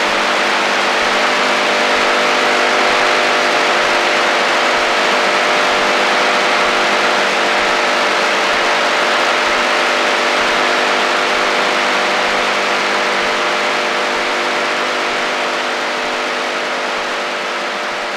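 HF-band AM radio interference: steady static hiss with a cluster of steady droning tones underneath, slowly fading near the end.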